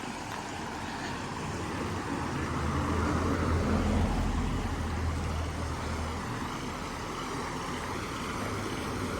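A road vehicle driving past: a low engine and tyre rumble that swells to a peak about four seconds in and fades away, over a steady background hiss.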